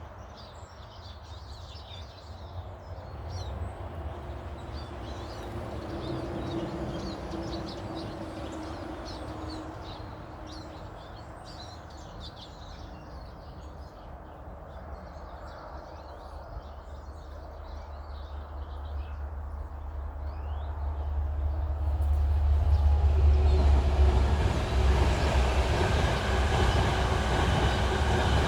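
Small birds chirping, while a low mechanical rumble builds over the last ten seconds or so and becomes the loudest sound, with a faint steady hum in it.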